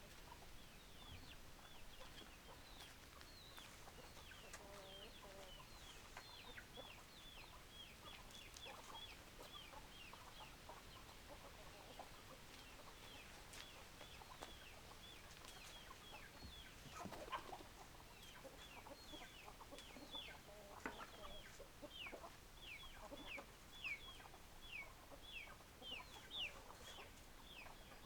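Chickens calling: a fast run of short, high peeps that slide downward, with a few lower clucks in between.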